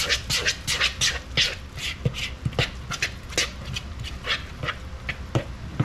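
Thick, wet fritter batter with chopped oysters squelching as a hand squeezes and mixes it in a plastic bowl: irregular squishes, a few a second.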